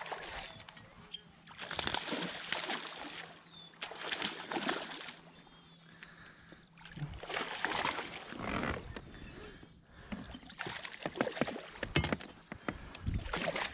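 A hooked bass thrashing at the surface beside a kayak: several bursts of splashing and sloshing water a few seconds apart.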